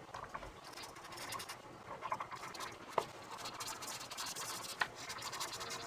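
Felt-tip marker scratching over coloring-book paper in quick, short back-and-forth strokes as an area is filled in, with a couple of sharper ticks along the way.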